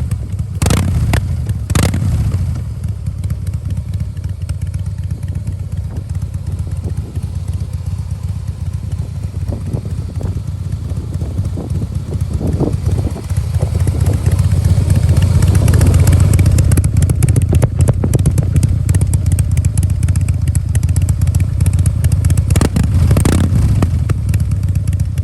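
Harley-Davidson Breakout CVO's Twin Cam 110 V-twin engine running through its exhaust. There are two short blips of the throttle near the start, then a steady lower run, and from about halfway it gets clearly louder and stays up to the end.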